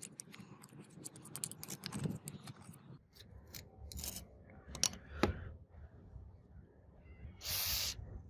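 A screwdriver scraping and clicking against rusted metal inside an angle grinder's gear housing for the first few seconds, then a few separate sharp clicks. Near the end there is a short hiss of an aerosol spray through a straw, putting penetrating spray on the seized armature.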